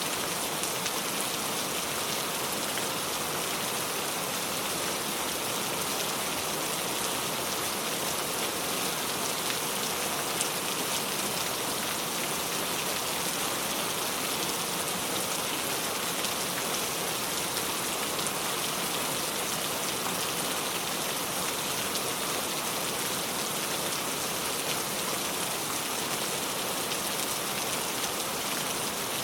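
Steady rain falling on a surface, an even hiss with scattered individual drop patter.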